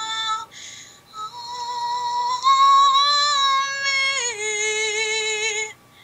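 A female voice singing long held notes without words, with a breath about half a second in and a step down in pitch about four seconds in; the last note wavers with vibrato and stops shortly before the end.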